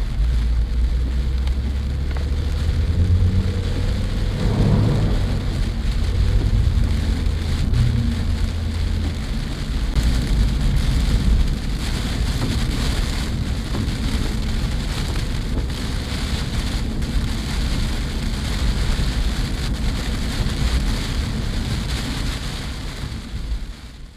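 Heavy typhoon rain drumming on a moving car, heard from inside the cabin through a dashcam microphone, over a low rumble of engine and road noise. The rumble is heavier for the first several seconds, and the sound fades out at the end.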